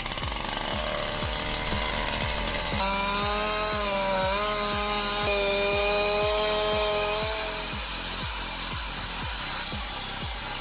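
A power saw cutting wood under background music with a steady beat; the saw's pitch dips briefly under load and then holds.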